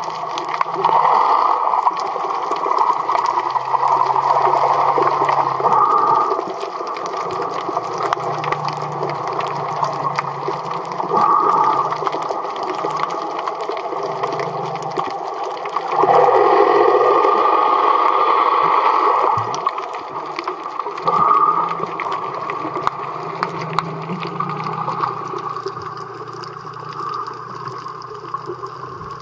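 Muffled underwater water noise from snorkelling: a steady rushing and gurgling, with louder surges that last a second or a few seconds, the longest about halfway through, easing off near the end.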